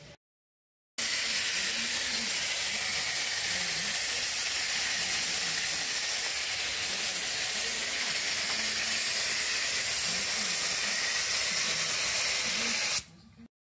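Compressed-air gravity-feed spray gun spraying: a loud, steady hiss that starts abruptly about a second in and cuts off sharply near the end.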